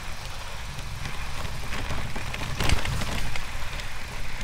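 Recumbent trike rolling along a snow-covered road: steady tyre noise through the snow over a low rumble, with scattered faint clicks and one sharp knock about two and a half seconds in.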